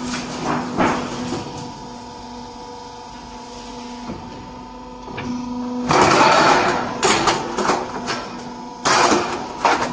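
Trapezoid roof-sheet roll forming machine running with a steady hum. Twice, about six and nine seconds in, there is loud scraping and rattling of a thin formed steel sheet being handled off the machine, with a few knocks between.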